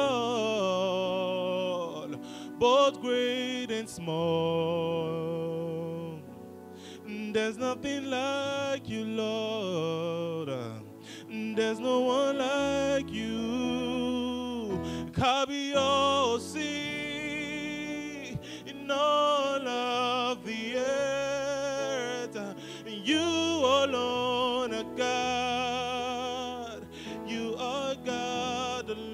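A male worship leader sings a slow gospel song with wavering held notes, accompanied by sustained chords on a Yamaha Motif XF8 keyboard.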